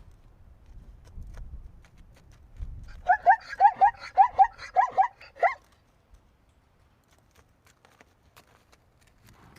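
Zebra barking: a quick run of about ten short, yelping calls lasting some two and a half seconds, starting about three seconds in.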